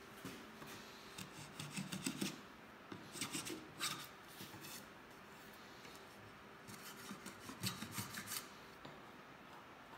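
Small hand plane taking short shaving strokes along a white oak runner strip, cleaning up tear-out around a drilled exit hole. The strokes come in three quick groups a few seconds apart.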